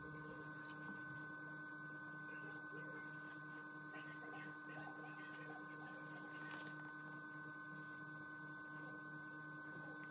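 Faint steady hum made of a few constant tones, with a few faint soft scratches about halfway through.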